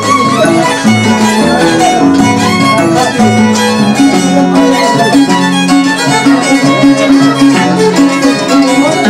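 Andean folk string music: violins playing the melody over the plucked bass line of an Andean harp.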